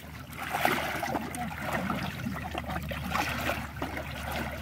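Shallow pond water sloshing and trickling, with small splashes, as someone wades through it catching fish.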